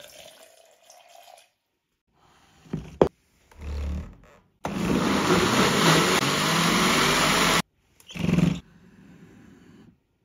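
Water poured into a blender jar, then a sharp click, followed by a countertop blender running for about three seconds as it blends a fruit smoothie and cutting off suddenly; a short second pulse follows.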